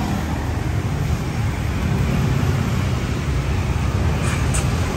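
Steady low rumble of street traffic, with two short sharp clicks near the end.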